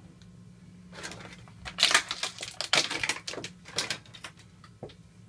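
Clear plastic blister-pack tray crackling and crinkling as it is handled: a quick irregular run of sharp crackles lasting about three seconds, with one last click near the end.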